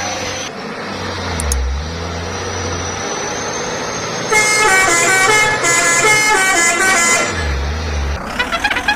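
Truck 'telolet' multi-tone air horn playing a melody of stepping notes for about four seconds, starting about halfway through, over steady background noise.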